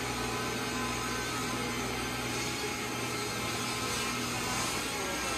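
Steady machinery running: an even hum and hiss with faint constant tones, holding level throughout.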